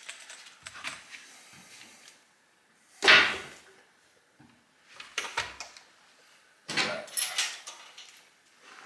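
Clunks and clatter of tools and chainsaw parts handled on a workbench: one sharp knock about three seconds in, then smaller clusters of knocks around five and seven seconds in.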